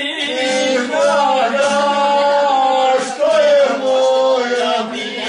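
Male voices singing a slow, drawn-out folk melody in the traditional izvorna style, long notes bending and wavering, over the steady sound of a plucked long-necked lute.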